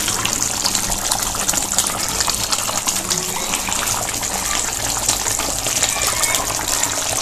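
Fish curry gravy boiling hard in a pan on a lit gas burner: a steady bubbling hiss with many small pops.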